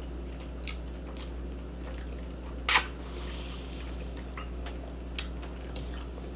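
A sharp clink of tableware, a utensil knocking a dish, about two and a half seconds in. A few fainter clicks sit around it, over a steady low hum.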